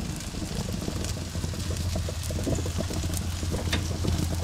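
Chicken pieces sizzling on the grate of a Weber Spirit gas grill, with scattered small crackles over a steady low hum, while the burner knobs are turned off.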